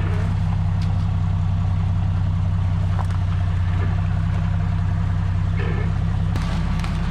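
Off-road 4x4's engine running steadily at low revs while crawling a rock obstacle, with a slight change in its pitch near the end.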